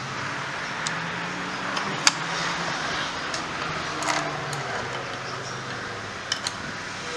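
Scattered sharp metallic clicks and clinks over a steady hiss, the loudest click about two seconds in.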